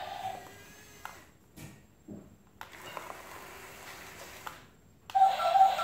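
Background music fades out, leaving a quiet stretch with a few faint, scattered clicks and knocks, and the music comes back near the end.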